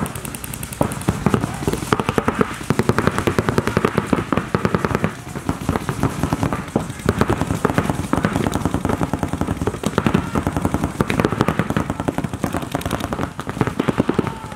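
Paintball markers firing in rapid strings, several at once: a dense, unbroken popping crackle of shots, many per second.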